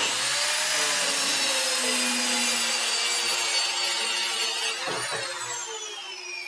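Mafell KSS300 portable circular saw starting up and cutting through a wooden board as it is pushed along its guide track. A knock comes about five seconds in, and then the motor's whine falls in pitch and fades as the blade winds down.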